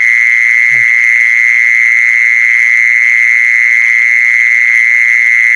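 An animal's loud, continuous high-pitched trill held at one steady pitch, with a brief low croak-like call about a second in.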